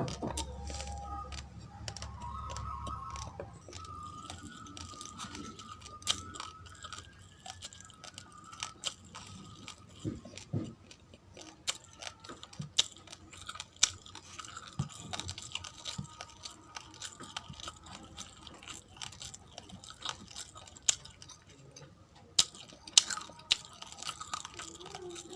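Raw, uncooked rice grains being chewed with the mouth close to the microphone: sharp, irregular crunches and cracks, with quieter grinding between them.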